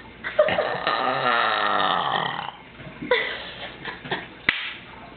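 A long burp, drawn out for about two seconds and wavering in pitch, starting about half a second in. A shorter sound and a sharp click follow near the end.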